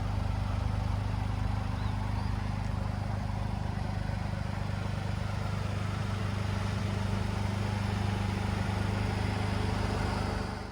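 Suzuki Jimny JB64 running at a steady pace: an even engine hum under a steady wash of tyre and road noise.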